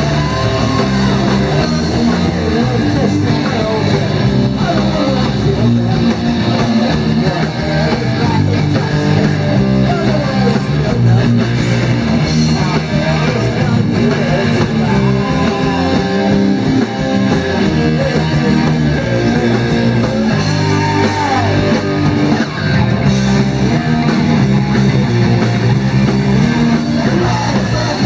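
Heavy metal band playing live: electric guitars, bass guitar and drums, with a vocalist singing into a microphone.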